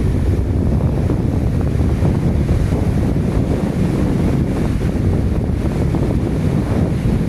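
Mississippi River water pouring over the St. Anthony Falls spillway and churning into whitewater below: a steady, heavy rush of falling and tumbling water, with wind buffeting the microphone.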